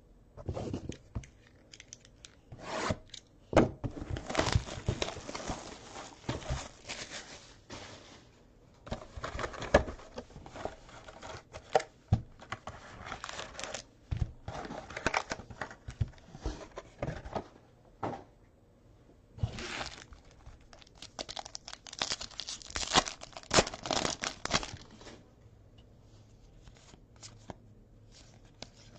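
A football trading-card pack's wrapper being torn open and crinkled by hand, with cards rubbing and sliding against each other, in three long spells of rustling and tearing that die down near the end.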